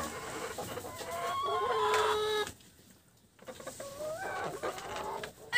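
Sasso laying hens clucking, short rising and falling calls from several birds, with the sound dropping out for about a second halfway through.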